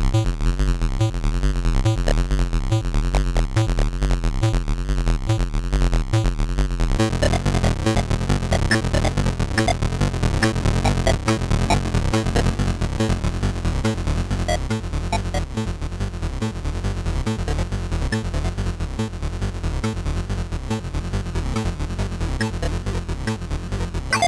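Soulsby miniAtmegatron 8-bit synthesizer playing a repeating sequenced pattern with a heavy bass line; about seven seconds in the patch changes to a busier, faster-pulsing sequence.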